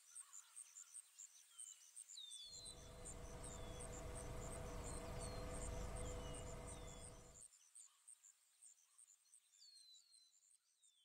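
Outdoor nature ambience: crickets chirping in a fast steady pulse, with short falling bird chirps now and then. From about two and a half seconds in to about seven and a half, a low rumble swells and drops out abruptly; it is the loudest sound.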